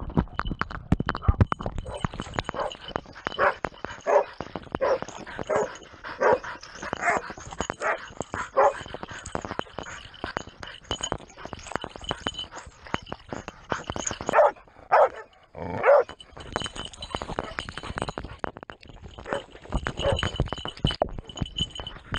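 Hunting hounds barking repeatedly over rustling and scraping through undergrowth as the dogs run. A quick run of barks comes a few seconds in, then a few louder barks a little past the middle.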